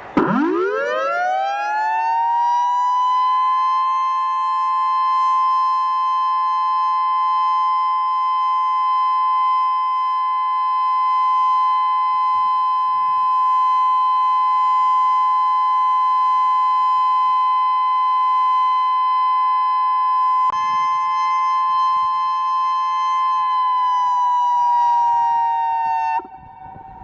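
Outdoor warning siren winding up from a low pitch to a steady, high two-note tone within about three seconds and holding it. Near the end it slides slightly down and then cuts off abruptly. A single click comes about two-thirds of the way through.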